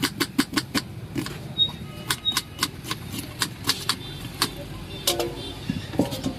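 Knife chopping a red onion on a plastic cutting board: quick taps of the blade on the board, about four a second, thinning out to a few scattered strokes after about four seconds.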